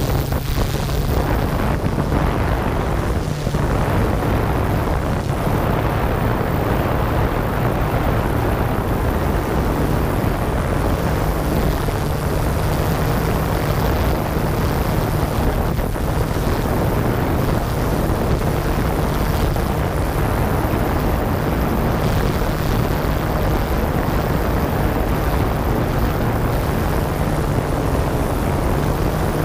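Yuneec Q500 quadcopter's motors and propellers running steadily in flight, heard close up from the drone itself: a steady low hum with a rushing noise over it.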